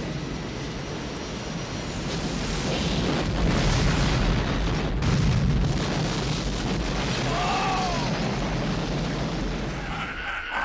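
Movie sound effects of a plane crash: a dense, continuous low rumble of explosions and wreckage, growing louder after a couple of seconds, with a few sharp impacts in the middle and a brief high arching whine near the three-quarter mark.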